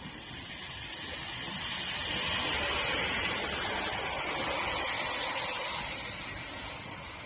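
Typhoon wind and rain: a rushing, spraying hiss that swells about two seconds in, holds, then eases off near the end.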